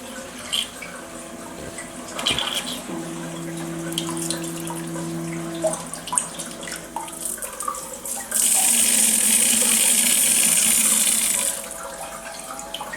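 Coway BA13 electric bidet seat running just after being powered on: water trickling, with a steady hum from about 3 to 6 seconds in, then a loud hissing spray of water for about three seconds near the end.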